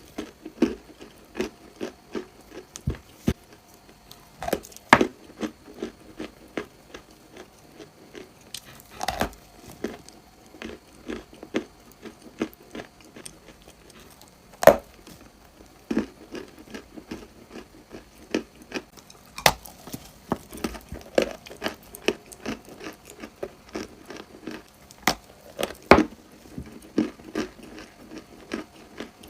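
Close-miked biting and chewing of crunchy dried clay: a steady, irregular run of sharp crunches and crackles, with a few louder bites cracking through now and then.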